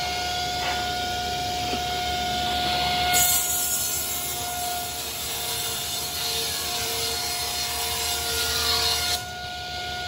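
Table saw running with a steady whine. About three seconds in, the blade starts ripping lengthwise through a sheet of plywood with a louder, rougher cutting noise. The cut ends about a second before the end, leaving the saw running free.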